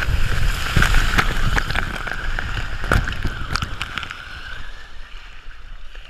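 Water rushing and splashing around a rider going down a water slide, with sharp splashes through it, dying down over the last second or two.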